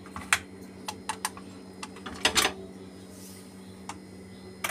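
Stainless-steel pressure cooker lid being unlocked and taken off: a series of light metal clicks and knocks, with a louder double clank a little past two seconds in, over a steady low hum.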